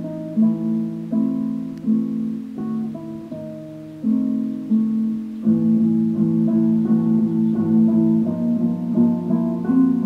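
Background music led by plucked, guitar-like notes. About halfway through it fills out into a busier run of quicker notes over a fuller low part.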